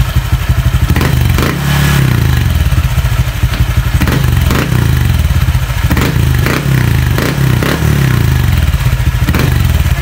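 Honda Click 125i scooter's single-cylinder 125 cc engine revved in repeated blips through an aftermarket MT8 racing pipe with a titanium tip, with its rear wheel spinning freely on the centre stand. The revs rise and fall about once a second, with sharp clicks in between.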